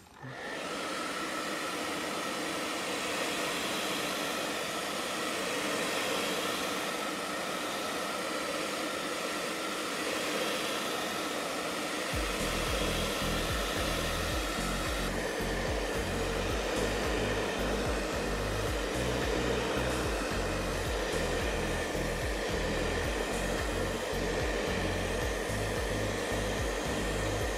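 Hair dryer switched on and blowing steadily, hot air aimed at a smartphone's screen. A low uneven rumble joins it about twelve seconds in.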